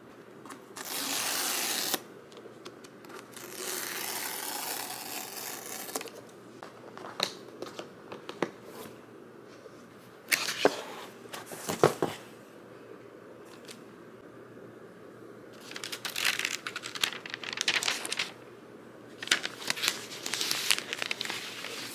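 Packaging being torn open and crinkled as a new iPad Pro box is unboxed. Several bouts of tearing and rustling, one running about two seconds, come with a few sharp clicks and knocks between them.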